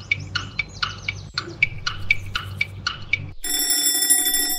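Quiz countdown sound effect: quick chirp-like ticks, about four a second, over a low steady hum. About three and a half seconds in, an alarm-clock bell rings, signalling that the answer time is up.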